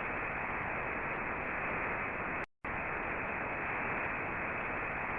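Steady static hiss with a dull, muffled top, cutting out completely for a split second about halfway through.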